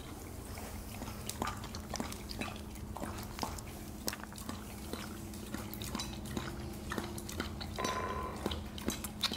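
Siberian husky licking and chewing the last of its raw food from a ceramic bowl, with irregular clicks and knocks of tongue, teeth and muzzle against the bowl. A steady low hum sits underneath.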